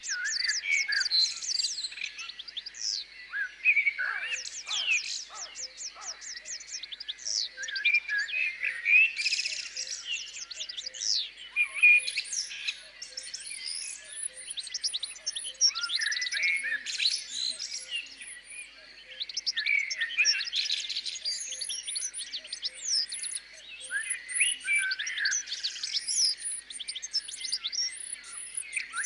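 Many small songbirds chirping and singing at once, a dense chorus of overlapping high tweets and rapid trills.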